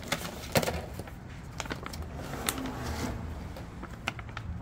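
Scattered clicks and knocks of hands handling small parts and tools on a work surface, the loudest knock about half a second in.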